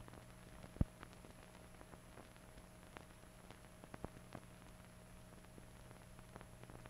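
Faint hiss and mains-type hum of an old film soundtrack, with scattered clicks and pops of surface crackle; one louder pop comes about a second in.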